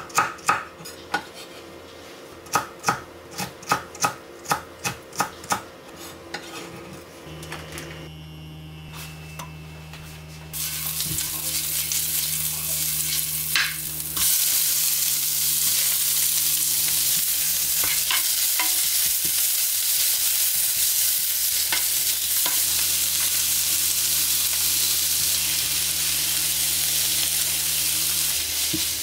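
Knife chopping on a cutting board in quick, regular strokes for the first several seconds. About ten seconds in, food starts sizzling in a hot frying pan. The sizzle gets louder a few seconds later and goes on steadily over a low, steady hum.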